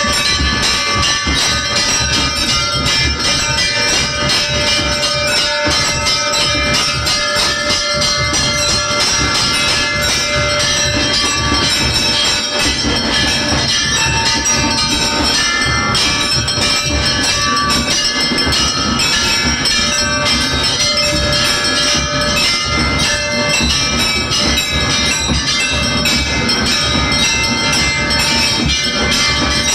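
Temple bells clanging continuously during a puja, many ringing tones layered over a dense, rapid beat.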